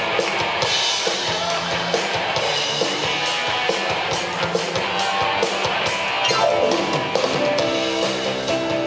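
Live rock band playing: guitars over a drum kit keeping a steady beat.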